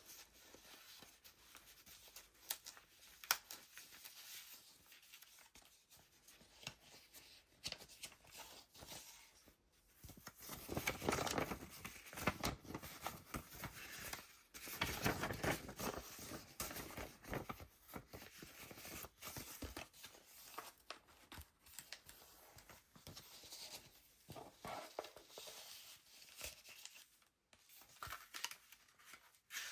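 Heavy paper pages of a handmade junk journal being turned and handled: rustling and crinkling with small taps, louder twice in the middle.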